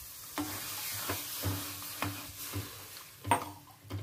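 Fried curry masala sizzling in a steel kadai as water is poured in for the gravy, with a steel ladle stirring and knocking against the pan several times, the sharpest knock near the end.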